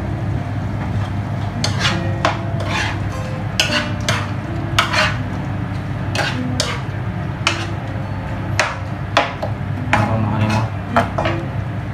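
A cooking utensil scraping and knocking against a frying pan in irregular strokes as diced pork is stirred, over a steady sizzle of the pork frying.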